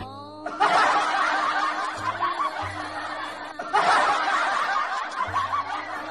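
Human laughter in two long fits, with a brief break a little past halfway.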